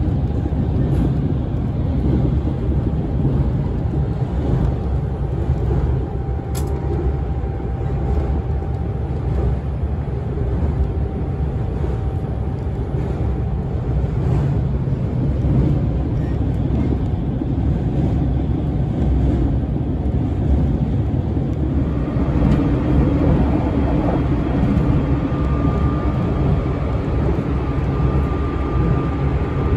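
Inside a JR Shikoku 8000 series electric express (renewed S4 set with Toyo Denki hybrid SiC VVVF drive) running at speed: a steady rumble of wheels on rail with a faint steady whine. About 22 seconds in the sound changes, fuller in the middle with a higher steady whine.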